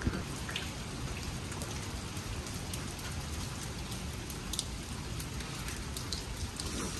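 Steady rain falling, with scattered individual drops ticking close by.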